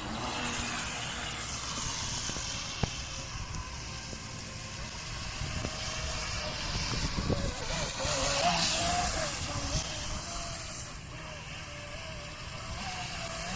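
Remote-control jet boat with a brushless electric motor running on water, its thin whine wavering up and down in pitch over a steady hiss of water and wind. The whine becomes clearer about halfway through.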